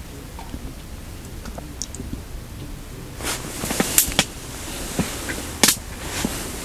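Rustling and several sharp clicks from hands handling small fishing gear, starting about three seconds in, over a low steady rumble.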